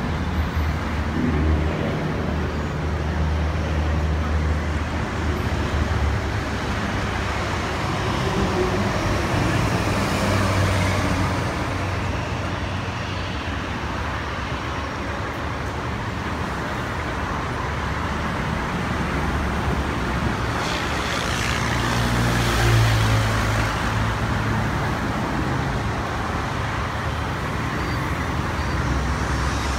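Steady road traffic noise, with one vehicle swelling louder and passing about three quarters of the way through.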